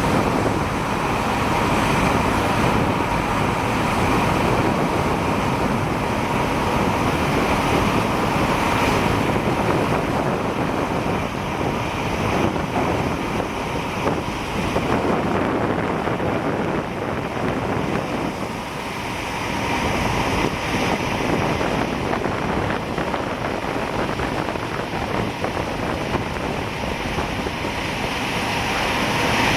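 Steady drone of an An-2 biplane's nine-cylinder radial engine mixed with rushing air, with a faint steady tone running through it.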